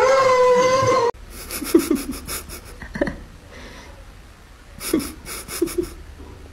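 A loud howl at one steady pitch, held for about a second and cut off abruptly, followed by a few short breathy huffs and light rustling.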